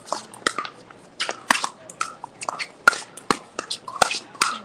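Pickleball paddles hitting the hard plastic ball in a fast exchange of volleys: sharp pops at irregular intervals, two or three a second.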